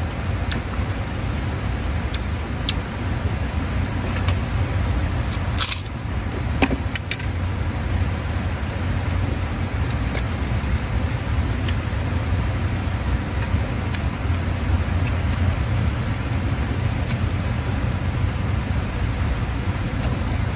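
Steady low rumble of background noise, with a few short clicks and taps from eating by hand at a tray of food.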